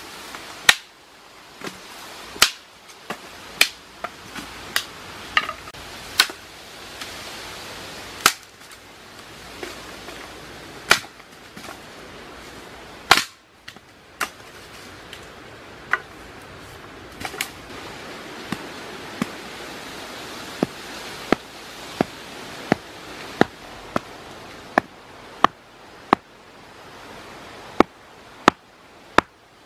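Sharp cracks and knocks of dry wood being handled, about once a second. Near the end comes a quicker run of strikes as a stone pounds a wooden stake into the ground.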